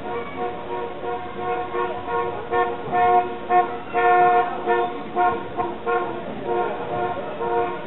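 A run of short, steady horn-like notes at a few different pitches, sounded in a rhythm like a tune and loudest in the middle, over faint street noise.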